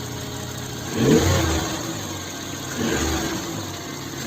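JAC engine idling, then revved in two short throttle blips about a second and three seconds in. The engine is misfiring.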